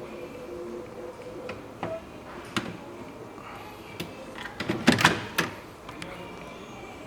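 Clicks and clunks of a kimchi refrigerator's doors and drawers being handled, scattered at first, with a cluster of loud clunks about five seconds in.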